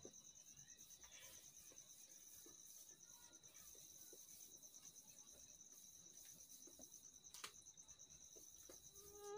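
Near silence, with a faint, steady high-pitched insect trill, like crickets, throughout. A faint click comes near the end.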